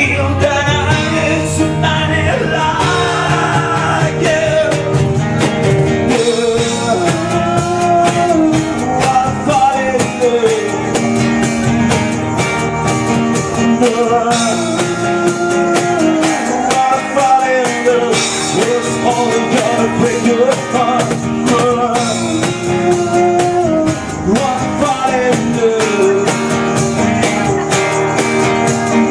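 A man singing a song live to his own classical guitar accompaniment, the guitar strummed and picked under a melodic vocal line.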